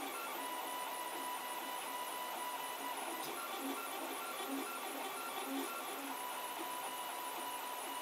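3D printer running a print: its stepper motors whine in tones that start, stop and change as the head moves, over a steady background of machine noise.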